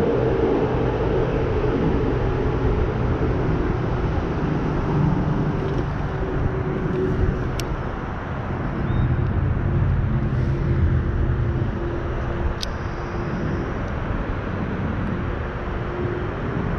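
Steady rumble of road traffic, with two sharp clicks about five seconds apart.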